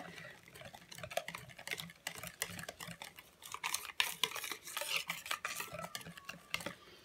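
Hand-held wire whisk beating a runny cake batter in a plastic mixing bowl: quick, continuous scraping and clicking strokes of the wires against the bowl.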